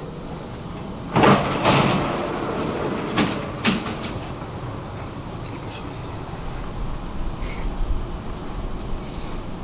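Sliding doors of a Stockholm metro train shutting at a station stop: two loud rushing thuds a second or two in, then two sharp knocks a couple of seconds later, over the train's low rumble. A steady high-pitched tone sets in with the knocks and holds.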